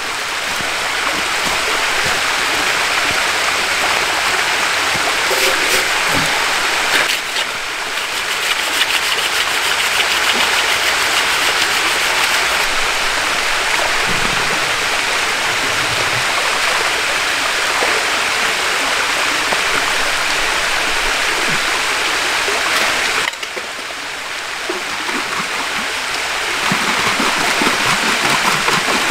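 A small creek running over a little cascade: steady rushing water.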